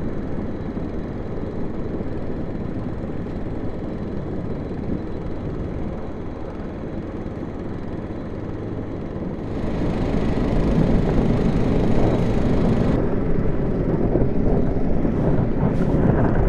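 Snowmobile engines droning steadily across open ice. About halfway through, the sound jumps to a louder, close-up snowmobile engine with rushing wind, as heard while riding along behind, with a few knocks near the end.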